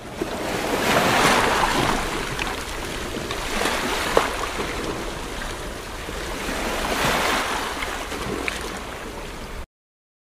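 Ocean surf: waves breaking and washing up a beach, swelling twice, then cutting off suddenly near the end.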